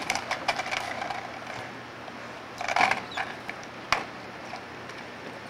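Skateboard wheels rolling on a concrete sidewalk, with a single sharp clack about four seconds in.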